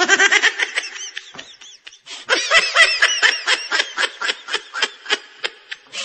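Parakeet imitating human laughter: quick, high-pitched 'ha-ha-ha' notes at about five a second, in two runs with a short break about two seconds in.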